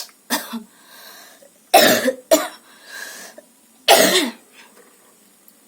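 A woman coughing in four short dry coughs. The three loudest come from about two seconds in. They are put-on coughs for a coughing challenge, coughing without needing to.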